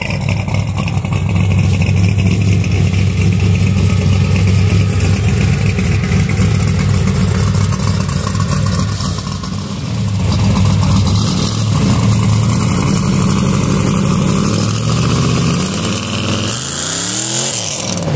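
Engine of a Yenko Stinger car running steadily through its exhaust, dipping briefly about ten seconds in. Near the end the revs climb as the car accelerates away.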